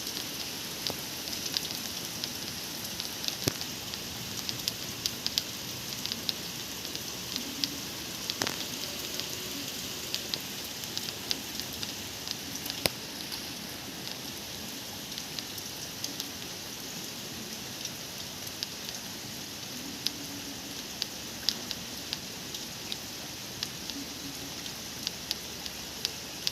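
Steady rain falling, with many sharp ticks of individual drops striking close by.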